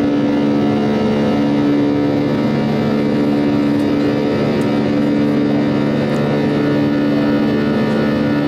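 Passenger aircraft engines and airflow heard inside the cabin during the climb out: a steady drone with several constant low hum tones over a rushing noise.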